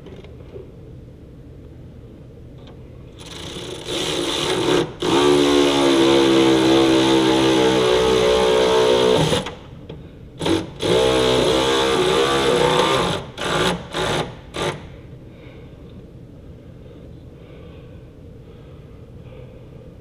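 A handheld power tool's motor running in long stretches with a brief break, then three short trigger bursts near the end.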